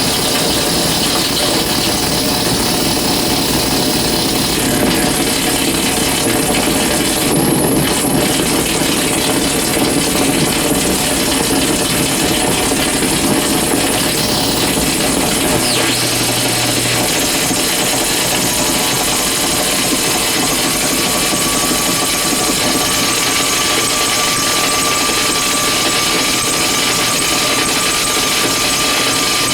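Compact fluorescent bulbs flickering under dimmer switches, their electrical bursts picked up by exposed guitar cables and amplified unprocessed: a dense, continuous buzzing noise. A steady high whistle enters about two-thirds of the way through and holds.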